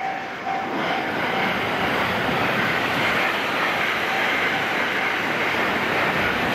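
Thunderbird limited express electric train passing at speed: a steady rush of wheel and running noise that builds about a second in and then holds as the long train goes by.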